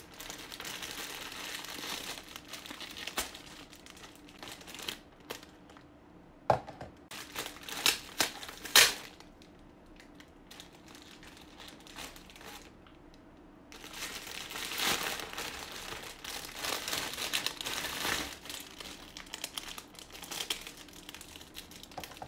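Clear cellophane gift wrap around an Easter egg crinkling as it is handled and pulled open by hand, in long stretches of rustle. A few louder, sharp crackles come about seven to nine seconds in, with a quieter spell after them.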